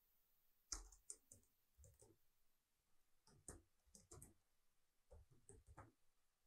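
Faint typing on a computer keyboard: about a dozen short, irregular key clicks.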